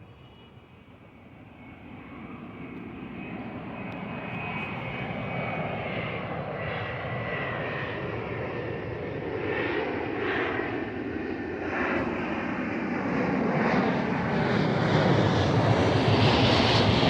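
Airplane on landing approach: a broad engine rumble with a faint whine over it, growing steadily louder throughout.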